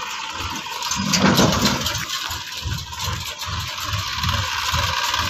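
Tractor's diesel engine running with a low, uneven throb as it pulls an emptied trailer, with a brief louder burst about a second in.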